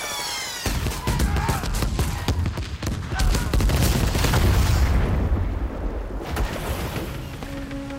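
Film sound effects of a rapid barrage of explosions with sharp cracks, starting about a second in, with deep booming heaviest around the middle.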